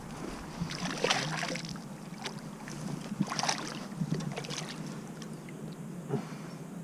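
Water splashing and sloshing in a stream in a few irregular bursts, with some wind noise on the microphone.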